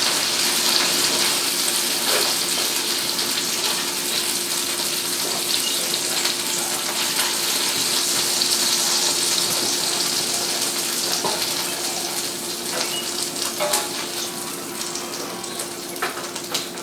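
Flour-dredged chicken breast slices sizzling as they fry in olive oil, butter and bacon fat in a sauté pan: a steady hiss with scattered crackles that eases off over the last few seconds. A faint steady hum runs underneath.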